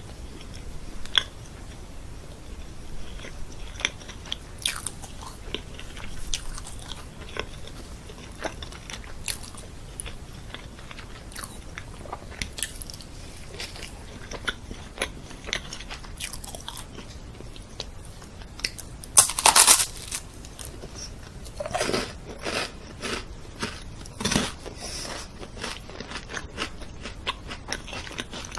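Eating-sound ASMR of a person biting and chewing crunchy food, with many short crisp crunches and clicks. The loudest crunching bite comes about two-thirds of the way through, followed by a quicker run of bites.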